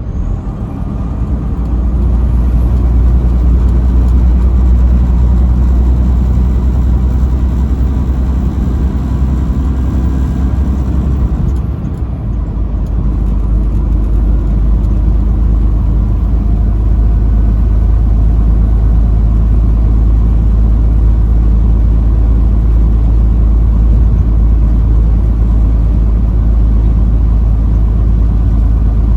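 Semi-truck's engine running steadily at highway speed, a loud, deep drone. It dips briefly about twelve seconds in, then settles at a slightly different low pitch.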